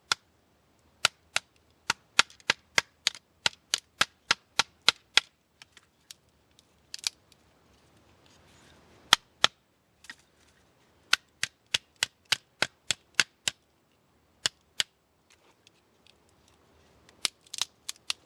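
Wooden baton striking the spine of a Swiss Army Hiker folding knife driven into a small piece of knotty wood, splitting it for kindling. Sharp knocks come in quick runs of about three or four a second, with pauses and single blows between.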